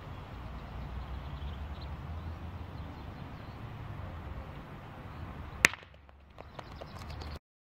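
A steel pétanque boule, thrown as a shot, strikes another boule with one sharp metallic clack, followed by a few lighter clicks as the boules scatter on the gravel. A steady wind rumble on the microphone comes before the hit.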